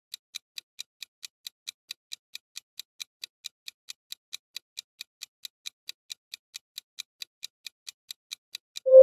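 Countdown timer sound effect: a clock ticking steadily, about four ticks a second. Just before the end the ticking stops and a much louder musical tone breaks in.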